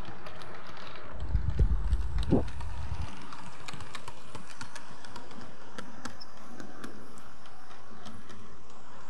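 Light, irregular clicking of a 00-gauge model class 150 unit's wheels running over the rail joints and pointwork, with a couple of seconds of low rumbling thuds about a second in.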